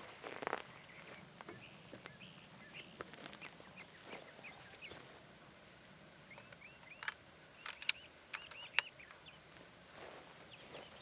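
Birds chirping in short, quick notes, with a few sharp clicks about two-thirds of the way in.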